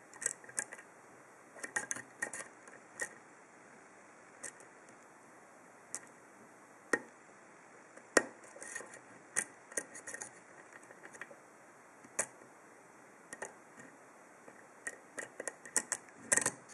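Faint, irregular small metallic clicks and scratches of a long hook pick probing and setting the pins of a split-core 7-pin pin-tumbler lock cylinder under a tension wrench.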